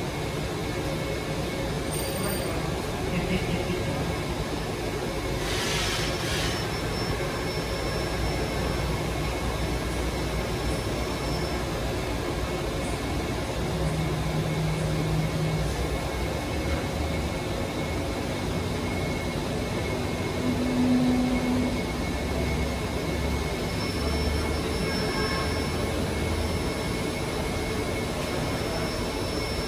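Automatic cotton candy vending machine running, a steady mechanical hum with a short hiss about six seconds in and two brief low motor whines later on.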